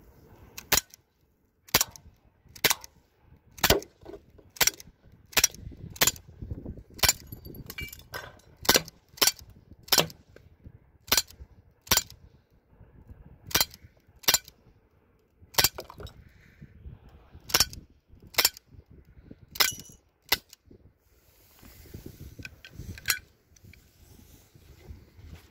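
Umarex Beretta APX CO2 BB pistol firing repeatedly: about twenty sharp cracks, roughly one a second with a few closer pairs, stopping about twenty seconds in.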